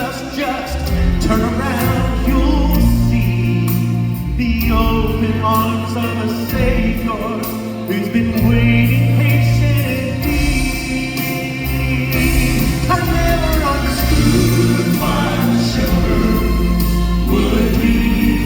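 Live gospel music: a vocal group singing in harmony over band accompaniment with a strong bass line.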